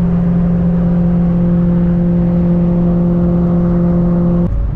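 Steady, loud drone of a vehicle driving at constant speed, a low hum with a couple of higher overtones. It cuts off abruptly near the end.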